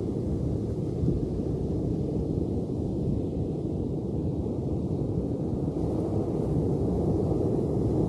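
Ocean surf: a steady, low rumble of waves that swells a little near the end.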